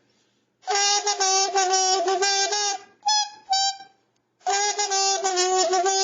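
Red Sing-A-Tina, a kazoo-like instrument, played in two phrases of buzzy, reedy notes, each a held sound of about two seconds followed by two short toots, sounded both by humming into it and by blowing while squeezing it.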